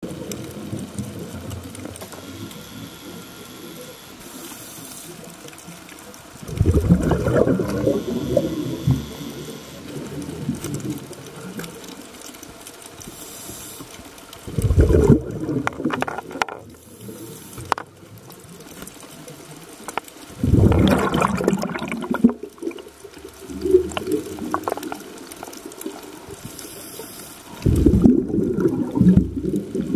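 Water rushing and sloshing heard underwater just below a choppy surface, with four louder low surges of water noise, each lasting one to three seconds.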